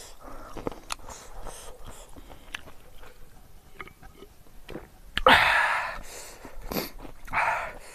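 Close-up chewing and wet mouth noises of a person eating with his hands. About five seconds in comes a loud, breathy exhale, and a second, shorter one comes near the end.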